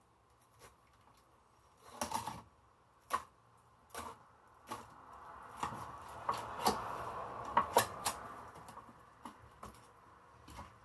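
Fillet knife cutting a fillet off a calico bass on a wooden cutting board: irregular clicks and scrapes as the blade works along the backbone and rib bones, busiest in the middle.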